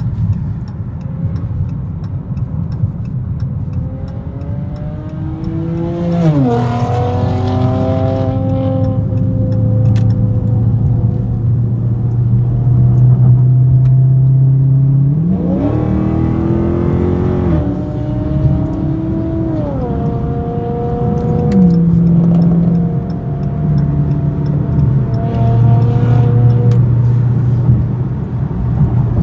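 Lexus RC 350 F Sport's 3.5-litre V6 exhaust under acceleration: the engine note climbs through the revs and drops at each upshift, three times, settling into a steady low drone between pulls. A few faint pops can be heard along the way.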